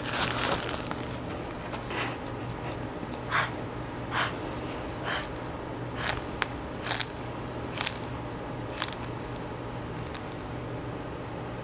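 Manual blood pressure cuff being inflated with its rubber hand bulb: short puffs of air about once a second, thinning out near the end.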